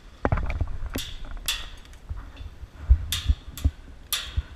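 Airsoft guns firing single shots: five sharp snaps at uneven intervals, with dull thumps and gear rustle in between.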